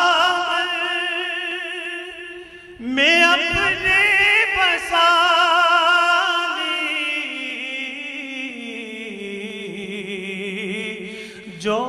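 Male voice singing an Urdu naat, drawing the words out into long, wavering ornamented notes. One phrase fades out about two and a half seconds in, and a new one starts about three seconds in and slowly slides lower in pitch.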